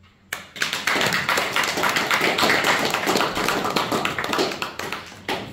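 Audience applauding. The clapping starts within the first second, holds steady, then thins out to a few last claps near the end.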